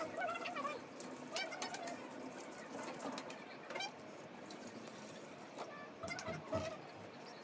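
Short animal calls, each a quick rise and fall in pitch, heard a few times, with scattered light clicks and handling noise.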